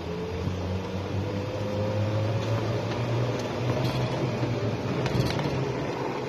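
Golf cart driving along, its motor running with a low hum and a thin whine that slowly rises in pitch as it picks up speed.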